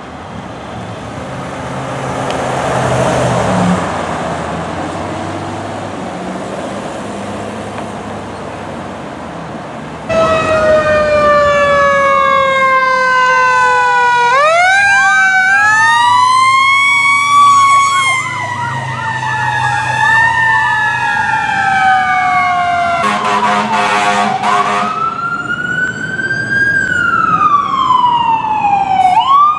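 A fire engine drives past with engine and road noise that swells and fades over the first few seconds. About a third of the way in, fire engine sirens start, several wails rising and falling over one another, with a fast up-and-down stretch in the middle. Near the end an air horn blasts for about two seconds, followed by another single siren wail rising and falling.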